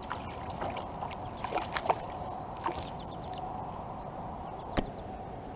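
Water sloshing and small splashes around a kayak with scattered light clicks and knocks as a small hooked fish is lifted out of the river on the rod; one sharper knock near the end.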